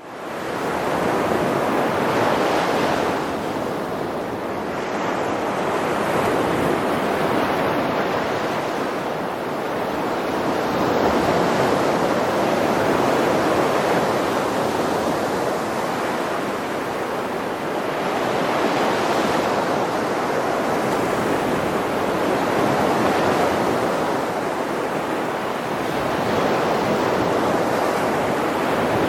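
Sea surf: waves washing onto a shore in a continuous rush that swells and eases every few seconds, fading in at the very start.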